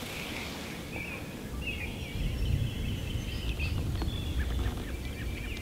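Outdoor birds calling, with high wavering, warbling notes, while wind buffets the microphone with a low rumble from about a second and a half in.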